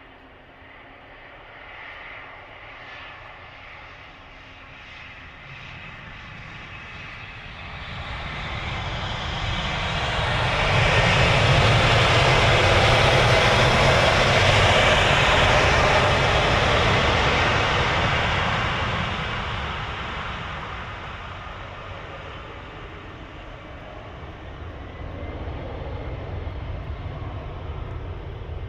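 Jet airliner passing close by on the airport runway: a broad engine roar swells to a loud peak about halfway through, then fades away.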